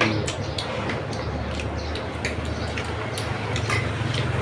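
A steady low hum with many small irregular clicks and ticks over it.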